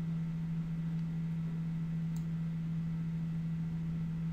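Steady low electrical hum, one unchanging tone, with a single faint click about two seconds in.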